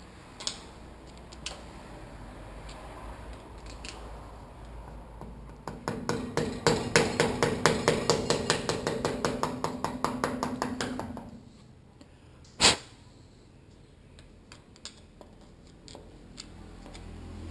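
Rapid light metal-on-metal taps, about seven a second for some five seconds, with the metal ringing under them, as the damper is tapped to work it out of a motorcycle fork leg past a sticking point. One sharp single knock follows about a second later.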